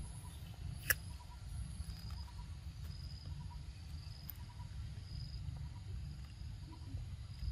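Insects chirping faintly on and off over a low steady rumble, with one sharp click about a second in.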